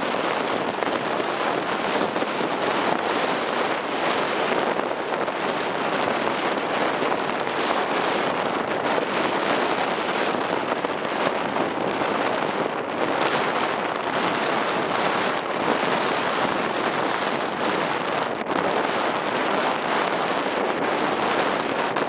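Strong wind buffeting the microphone aboard a moving ferry: a steady rushing noise that swells and eases, with no engine tone standing out.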